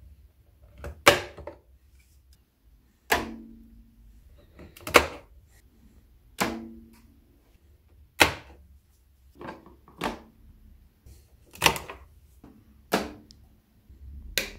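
Hard plastic clicks and clacks, about ten, roughly one every one and a half seconds, some with a short hollow ring: rechargeable camera batteries being unclipped from their chargers and snapped into an LED light panel's battery mount.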